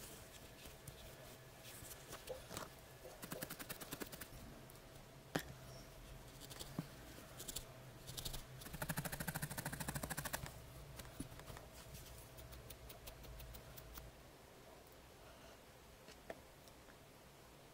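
Felting needle jabbing rapidly into a wad of wool, in short runs of quick soft pokes, the longest run about nine seconds in, with scattered small clicks from handling the wool.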